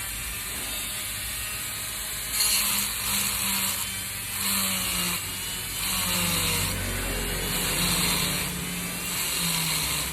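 Small rotary grinder with a grinding bit running steadily, cutting in repeated bursts of about one to two seconds from a couple of seconds in, as it grinds off the riveted axle of a Zippo lighter's flint wheel.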